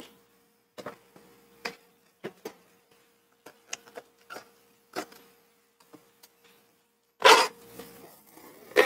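A wooden strap cutter is set and a strip of heavy veg-tan leather is fed into it, giving scattered small clicks and taps. Near the end comes a louder scraping rush as the leather is pulled through the blade and a strap is cut. A faint steady hum runs underneath.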